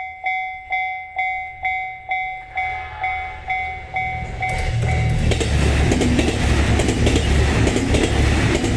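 Japanese railway level crossing warning bell in the JR standard electronic tone, striking about twice a second. About four seconds in a JR Senseki Line train arrives, and its loud running rumble over the rails covers the bell.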